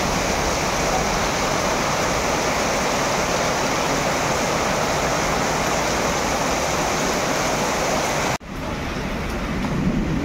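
Heavy rain pouring down, a steady even rush of noise. About eight seconds in it cuts out for an instant and comes back duller, with a low rumble near the end.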